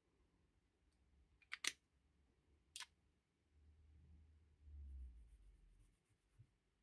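Near silence, broken by two faint sharp clicks, the first about one and a half seconds in, the second about a second later, then a faint low rumble.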